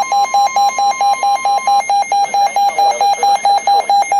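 Electronic emergency alert tone beeping rapidly and evenly, about five beeps a second, with a steady higher tone under it that cuts off about two seconds in. It marks the start of a new severe thunderstorm warning broadcast.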